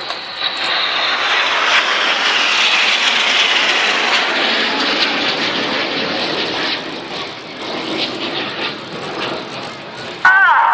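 BAE Hawk T1 jets passing in formation: a loud rushing jet noise that builds within the first second. Its pitch falls over the next few seconds as they go by, and it fades from about halfway.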